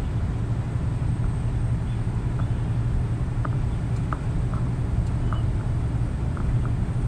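Scania truck cruising on the open road: a steady low drone of engine and tyre noise, with faint short high chirps now and then.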